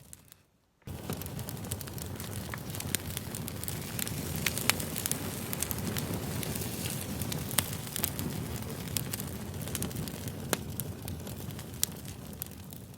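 Campfire crackling: a steady rustle of burning wood with frequent sharp pops. It starts abruptly about a second in after a brief silence and fades out near the end.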